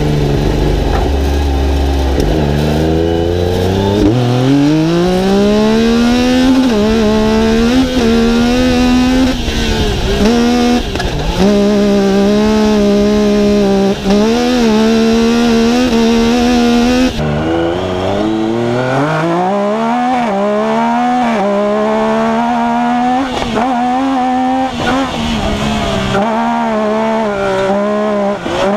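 Yamaha YXZ race UTV's three-cylinder engine heard from inside the cab, accelerating hard. The pitch climbs and drops back at each gear shift, then holds high revs. After an abrupt cut about 17 seconds in, a second race UTV's engine pulls up through its gears the same way.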